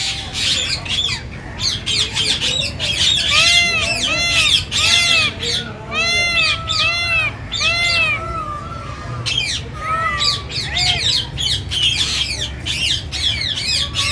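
A crowd of birds squawking and chirping over one another. In the middle comes a run of short, repeated calls, each rising then falling in pitch.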